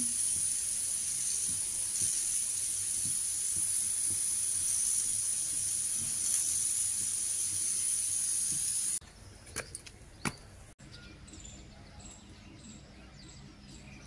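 Steady high hiss with faint soft taps as flour is shaken through a steel sieve into a steel bowl, cutting off abruptly about nine seconds in. After that, faint short bird chirps repeat in the quiet, with a few clicks.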